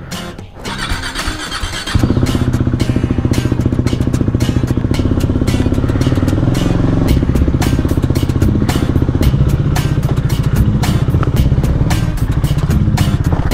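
Single-cylinder KTM Duke 390 motorcycle engine running with a dense, rapid firing pulse. It comes in suddenly and loudly about two seconds in, then holds steady.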